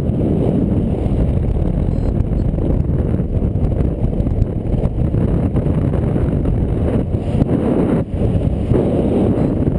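Airflow rushing over the microphone of a camera carried by a paraglider pilot in flight: a loud, low, rumbling rush that gusts up and down, briefly easing about eight seconds in.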